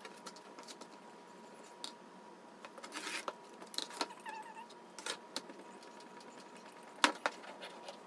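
Fabric scissors cutting through a 100% cotton men's shirt along its seams: irregular snips and cloth rustling, with a sharper click about seven seconds in.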